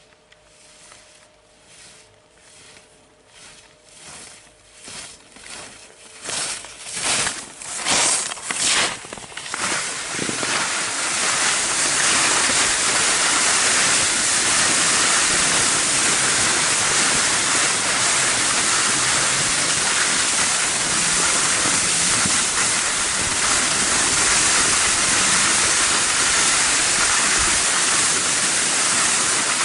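Skis carving short turns on packed snow: a swish roughly every half second, growing louder as the skier comes closer. From about ten seconds in, a steady loud rush of wind over the microphone and skis sliding on snow while the camera operator skis behind.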